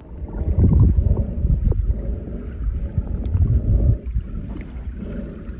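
Muffled water rumble and sloshing on a phone's microphone as it is held at and under the water's surface. The sound is deep and loudest for the first four seconds, then eases a little.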